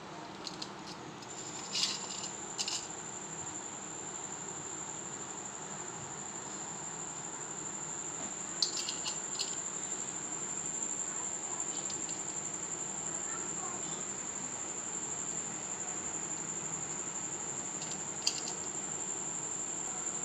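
A cricket trilling in one steady, high, continuous note. A few light taps and clicks come from bread being handled on a steel plate, twice near the start, once around the middle and once near the end.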